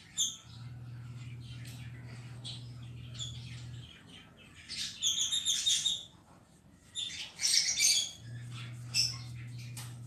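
Cockatiel chirping and warbling in short bursts, loudest around five and again seven and a half seconds in. Underneath, a low steady hum starts and stops.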